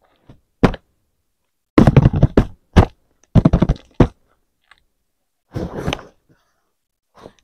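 Hands tapping and drumming on a taped corrugated cardboard box: one knock, then two quick clusters of hollow thunks and knocks. Near the end there is a softer scraping rustle of cardboard as fingers work at the taped flap.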